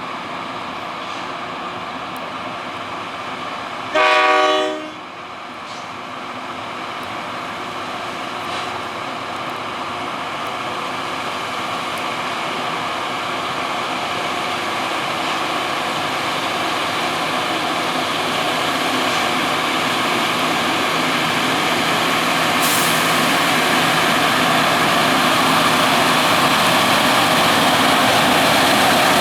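Rail track grinder train sounding one short horn blast about four seconds in as it departs, then its engines running and growing steadily louder as it approaches.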